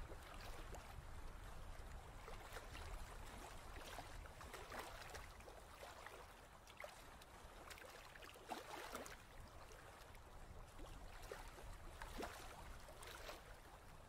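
Faint underwater ocean ambience with a steady low rumble of water, and dolphin clicks and short crackles scattered irregularly through it.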